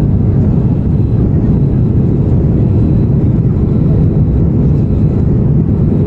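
Airbus A330-300 jet airliner on takeoff: a steady, loud low rumble of engines and rushing air with no changes.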